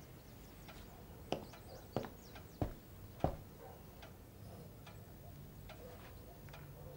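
Footsteps of hard-soled shoes on a wooden floor: four distinct steps about two-thirds of a second apart in the first half, followed by fainter regular ticking.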